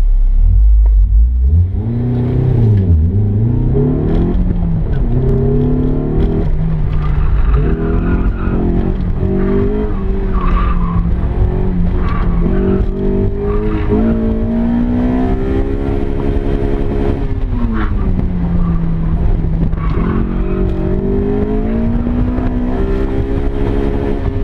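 Honda S2000's 2.2-litre four-cylinder engine heard from inside the cabin, revving up to around 8,000 rpm and dropping back again and again between full throttle and lifting off. Brief tire squeal comes in at points.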